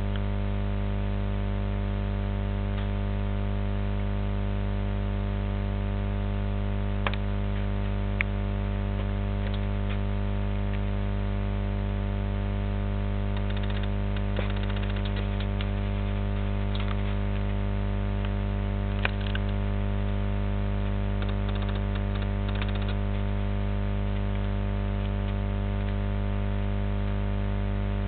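Steady electrical hum with a buzzing stack of evenly spaced overtones, unchanging throughout, with a few sharp clicks and short patches of faint crackle.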